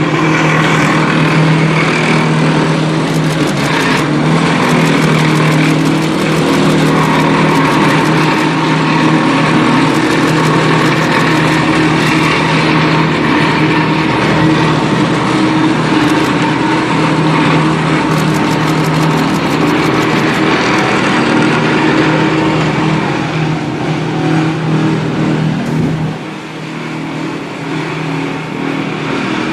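Engine running steadily, then dropping away about four seconds before the end.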